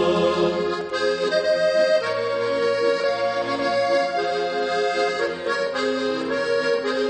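Instrumental interlude of a Christian hymn: an accordion playing the melody over held chords, with no singing.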